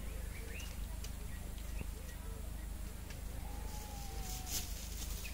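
Faint short chirping calls, scattered through, with one longer falling call about three and a half seconds in, over a steady low hum.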